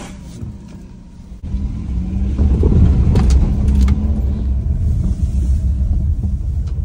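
Suzuki car heard from the driver's seat while driving: quieter at first, then about a second and a half in the engine and road noise rise to a loud low rumble as the car accelerates, with a faint rising engine tone. A few light clicks come about three seconds in.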